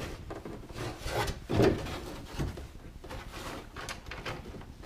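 Socket tool scraping and clicking against the tailgate's inner metal panel as a 10 mm handle nut is worked loose, in irregular rubbing and knocking sounds with a louder knock about one and a half seconds in.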